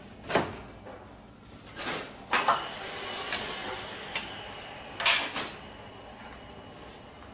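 Knocks and rattles of hands handling parts in a car's engine bay: a sharp knock about half a second in, a double knock followed by a scraping stretch around two and a half seconds, and another double knock about five seconds in.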